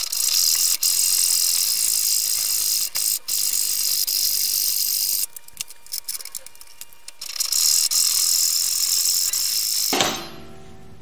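Bow saw cutting through a mahogany block, a steady rasp of the teeth through the wood. It pauses for about two seconds halfway, with a few light clicks, then resumes and stops shortly before the end.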